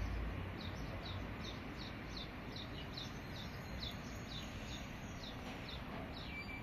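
A small bird calling a steady run of short, falling chirps, a little more than two a second, over steady background noise.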